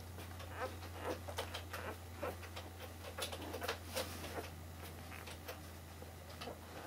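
Newborn puppy making short, irregular squeaks while its mother dog licks and nuzzles it, with wet licking sounds mixed in. A steady low hum runs underneath.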